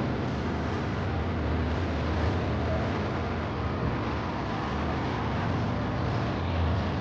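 Steady road traffic on a busy city boulevard: cars running past in an even low noise, with no single vehicle standing out.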